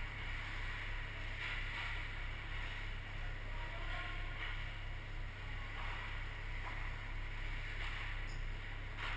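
Steady indoor ice-rink noise: a constant low hum under a wash of hiss, with a few faint, brief scrapes of skates on the ice.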